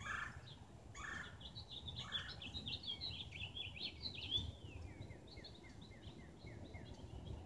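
A songbird singing a fast, jumbled warble of high chirping notes, ending in a run of quick down-slurred notes about six a second. A few short scuffing noises in the first couple of seconds.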